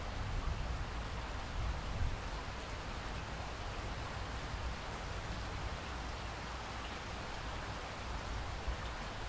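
Steady rain, an even hiss over a low rumble.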